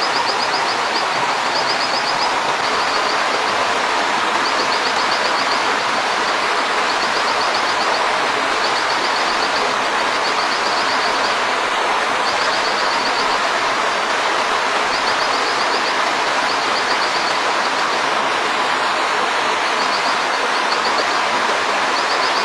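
Steady rushing outdoor noise with an insect calling in short, high, rapidly pulsed trills, repeated every second or two.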